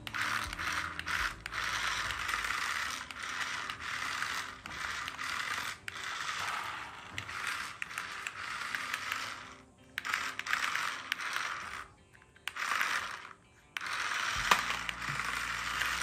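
Small electric motors and plastic gearboxes of toy remote-control vehicles whirring and grinding as they are driven. The sound runs in stretches that start and stop several times.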